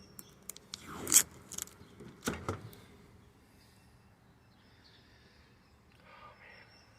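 Handling noises: a few light clicks, then two short, loud scraping or rustling sounds about one and two seconds in, then quiet handling.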